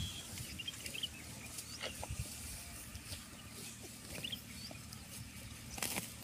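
Water buffalo grazing close up: cropping and chewing dry grass with soft snuffling, as scattered short clicks and rustles. A sharper click comes near the end.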